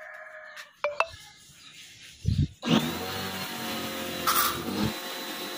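After a couple of clicks and a thump, a motor-driven sprayer starts about two and a half seconds in. It runs steadily with a high whine, blasting a jet of spray mist into the fridge's freezer compartment to wash it out.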